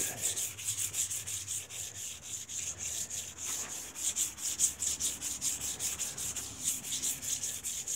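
400-grit waterproof sandpaper rubbed by hand over a wet painted car hood: wet sanding in quick, even back-and-forth strokes, several a second, a rhythmic scratchy hiss.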